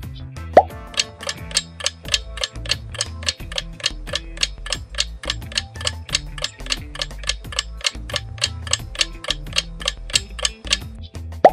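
Countdown clock ticking steadily, about three ticks a second, over light background music, with a short rising pop about half a second in and another at the very end.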